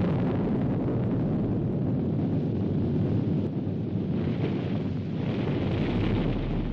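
Continuous heavy rumble of explosions, a dense low noise like a bombardment that holds steady without distinct separate blasts.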